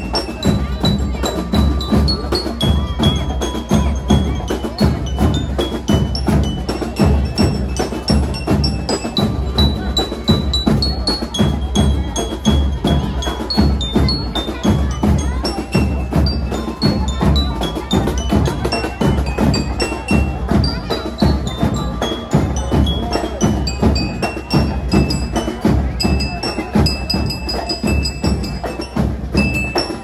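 School marching band (fanfarra) playing a piece. Snare and bass drums keep a steady driving beat with cymbals, under a high melody of short stepping notes.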